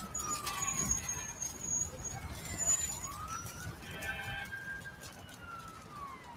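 A siren wailing in slow sweeps: falling in pitch at the start, then rising about three seconds in, holding high and falling again near the end, over faint street noise.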